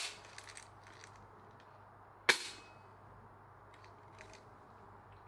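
An airsoft rifle fires a single shot about two seconds in: one sharp crack with a brief ring after it.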